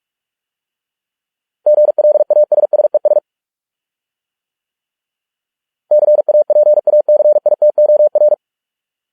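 Morse code sent at 45 words per minute as a single steady beep: two words of rapid dots and dashes, the first about a second and a half long and the second about two and a half seconds, separated by silence.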